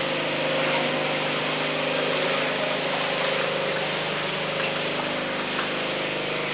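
Footsteps splashing and wading through ankle-deep floodwater on a corridor floor, over a steady machine hum.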